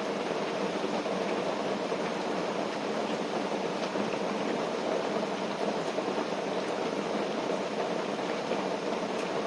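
Steady, even rain on a tent, a dense hiss with a few faint drop ticks.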